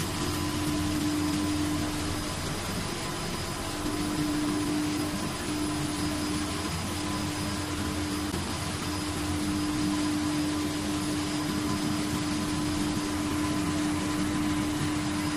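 Curtain coating machine running: a steady mechanical hum and rush of noise, with a steady droning tone that breaks off briefly a few times.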